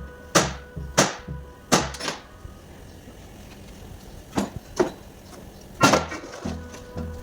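A series of sharp knocks and clinks from tools and parts being handled on an opened engine, about eight, some in quick pairs, over faint background music.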